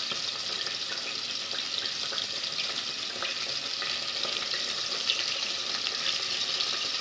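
Onions frying in oil in a stainless steel pot, a steady sizzle with a few faint ticks.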